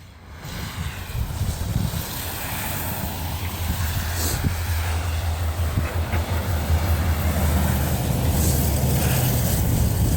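Blizzard wind buffeting the microphone, a steady low rumble that builds over the first couple of seconds and then holds.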